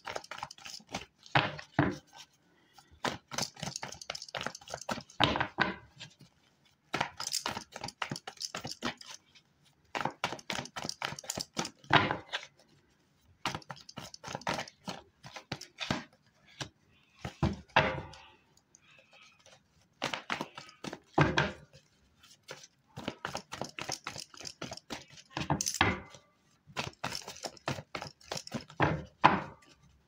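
A deck of tarot cards being shuffled by hand: repeated bursts of quick riffling and flicking clicks, each a second or two long, with short pauses between.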